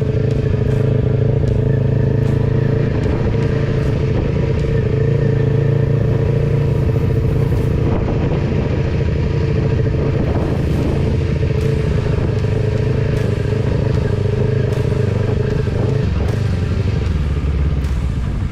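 Kawasaki Ninja 400 motorcycle's parallel-twin engine running steadily under way at cruising speed; near the end the engine note drops lower as the bike eases off.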